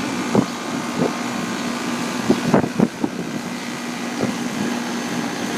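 2001 York central air conditioner's outdoor condensing unit running: a steady hum under the rushing air of its condenser fan. A few brief knocks come about halfway through.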